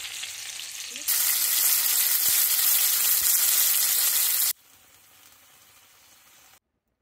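Floured chicken pieces frying in oil in a cast iron skillet, a steady sizzle. About a second in it turns much louder, then drops suddenly to a faint sizzle past the middle and cuts off to near silence about a second before the end.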